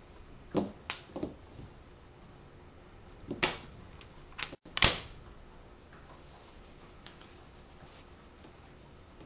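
Magnetic hardwood toy blocks clacking sharply together as they are set in place, about seven clicks at an uneven pace: three in quick succession at the start, then two louder ones in the middle and a lighter one later.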